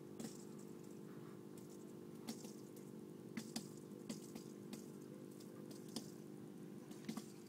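Aquarium filter and aeration running: a steady hum with water bubbling and trickling, and a few sharp ticks scattered through it.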